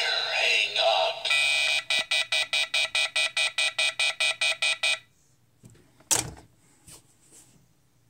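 Animated Halloween rotary-style novelty phone sounding through its small speaker. The tail of its recorded message is followed by a rapid beeping busy tone that pulses about seven times a second for some three seconds and then cuts off suddenly. About six seconds in, the handset clunks back onto its cradle, with a couple of lighter clicks around it.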